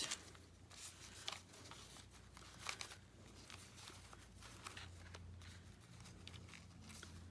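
Faint rustling and light clicking of small paper and cardstock pieces being shuffled through by hand in a plastic storage box, over a steady low hum.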